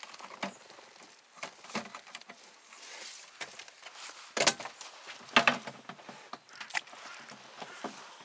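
Handling noises in a boat: irregular knocks and rustles as a freshly caught small perch and the gear around it are handled, with two louder knocks about halfway through.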